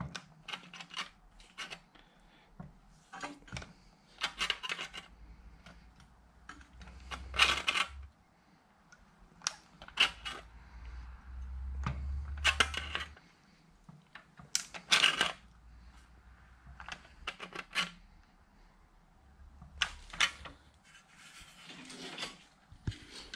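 Eastwood hand-lever metal shrinker working a sheet-steel patch panel: irregular sharp metallic clicks and clacks as the jaws bite the flange and the panel is shifted along, in small steps that gradually curve it.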